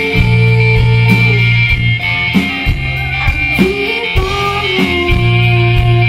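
Live rock band playing: electric guitar and bass holding sustained notes over a drum kit's steady beat, with some singing.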